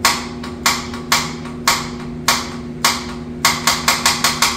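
A run of about a dozen sharp knocks, like blows on a hard object. They come about one every half second, then quicken to about five a second in the last second.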